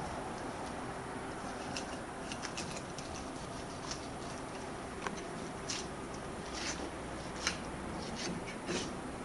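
Kitchen knife shaving the belly bones off a Japanese sea bass fillet on a cutting board: faint scattered scrapes and small clicks over a steady background hiss.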